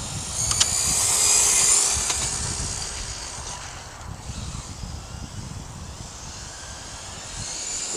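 HSP radio-controlled car's motor whining at speed as it drives around the court, swelling about a second in, fading away, then building again near the end as it comes back. Wind rumbles on the microphone underneath.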